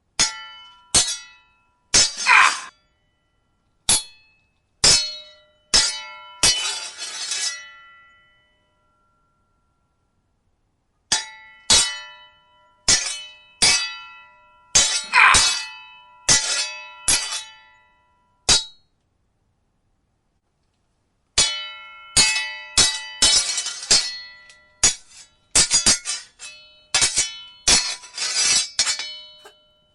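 Steel sword blades clashing in flurries of ringing strikes, with a few longer grinding slides of blade on blade. Twice the flurries stop for a silent pause of two or three seconds, about a third and two-thirds of the way through.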